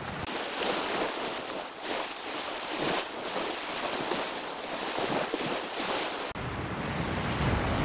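Steady wash of ocean surf with wind blowing across the microphone; the low wind rumble drops away near the start and comes back about six seconds in.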